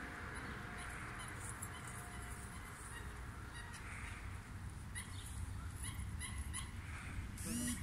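An Afghan hound gives one short, bright bark near the end. Before it there are light scattered taps and scuffs over a steady background hum.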